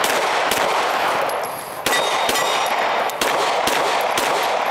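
A string of pistol shots, unevenly spaced, each with a loud ringing tail, and a steel target ringing after a hit about two seconds in.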